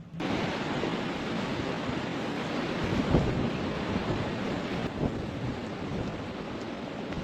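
Blizzard wind blowing hard: a loud rushing noise that starts abruptly and surges about three seconds in.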